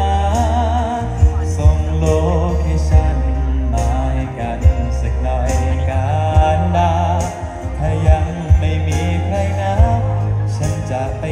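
Amplified live band music with a singer holding wavering vibrato notes over heavy bass and drum hits.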